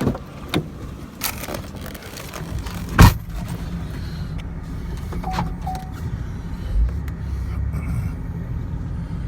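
A few sharp knocks and a loud thump about three seconds in, then the minivan's engine running with a steady low rumble.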